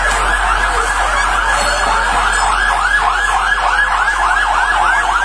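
Fire engine siren on a fast yelp, its pitch rising and falling about four times a second, cutting off suddenly at the end.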